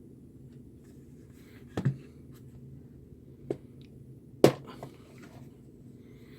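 A few sharp clicks and taps from a small screwdriver and the plastic case of a handheld multimeter being handled while its case screws are worked loose, the loudest about four and a half seconds in.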